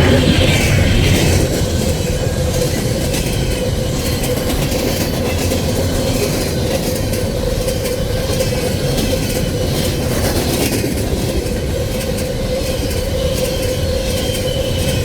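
Coal train's freight cars rolling past, wheels clicking over the rail joints in a steady rhythm over a constant rumble, with a steady high tone throughout. A little louder for the first second or so.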